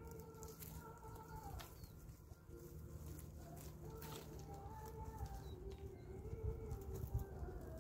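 Faint, drawn-out clucking calls of domestic chickens, with a few light clicks.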